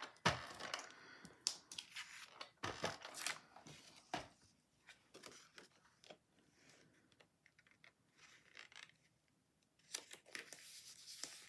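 Handheld tape dispenser run across the back of a cardstock piece: a cluster of quick, dry scratchy clicks over the first four seconds or so, then sparse soft paper rustles and taps as the piece is laid down and pressed into place, with more handling near the end.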